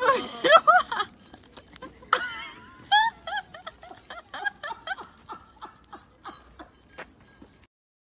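A person laughing: high giggles at first, then a run of short breathy laughs that fade off and break off near the end.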